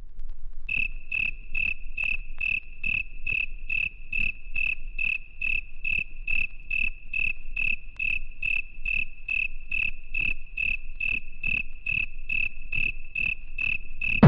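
Cricket chirps repeating at an even pace, about two and a half a second, high-pitched. They form the intro of an electronic dance track.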